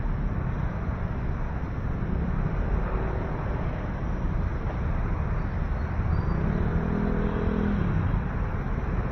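City street ambience: a steady rumble of passing road traffic, with a brief pitched sound rising out of it about seven seconds in.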